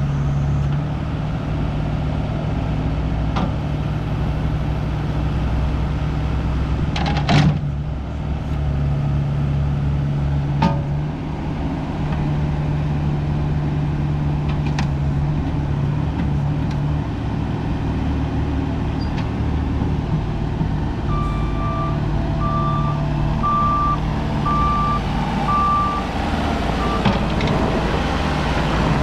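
JCB 1CX compact backhoe loader's diesel engine running steadily, with a couple of sharp clanks. Near the end a reversing alarm beeps about five times, evenly spaced.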